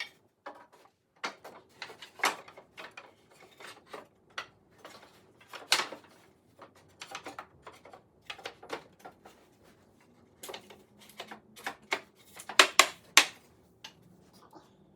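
Irregular knocks and clacks of wooden potting-bench parts and loose hardware being handled and fitted together, with a burst of louder knocks near the end.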